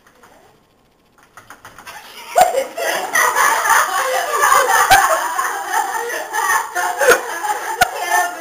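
Several people laughing loudly together, breaking out about two seconds in after a near-quiet start, with a few sharp knocks among the laughter.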